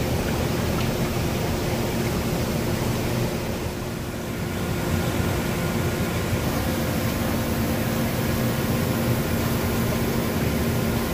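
Electroplating tank's air agitation bubbling and churning the bath steadily, with a faint steady hum underneath.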